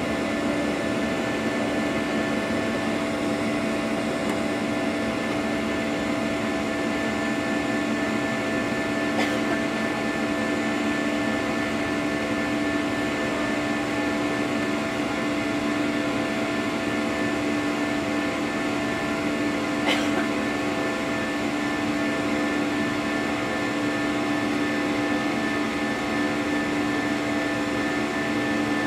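Cabin noise of a Boeing 737-800 in its climb after takeoff: the steady rush of its CFM56-7B turbofan engines, with several steady hums and tones through it. Two faint clicks come about nine and twenty seconds in.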